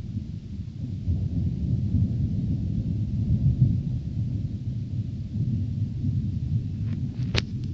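Thunder rumbling low and long, swelling about halfway through. A sharp click sounds near the end.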